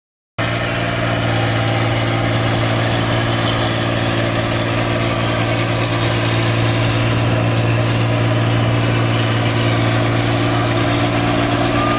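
Engine of an 8060 rice combine harvester running loudly and steadily, a constant low hum with no change in speed.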